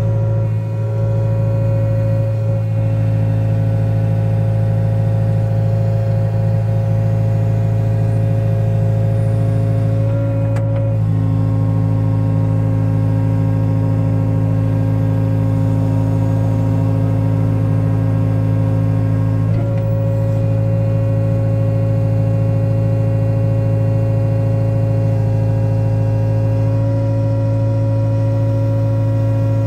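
Wheeled excavator's diesel engine and hydraulics running steadily under load as the boom lifts a steel frame on its hook, the engine note shifting slightly twice as the load on the hydraulics changes.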